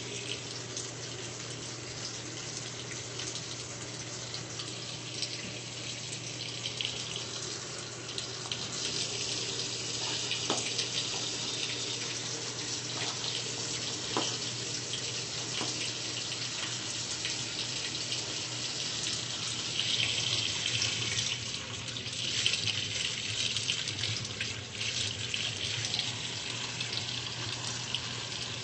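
Water running and splashing steadily in a top-load washing machine's tub, over a low steady hum, with a few faint clicks about halfway through.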